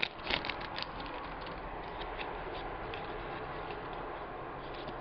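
Faint steady hiss with a few light clicks and ticks from trading cards being handled and sorted, most of them in the first second.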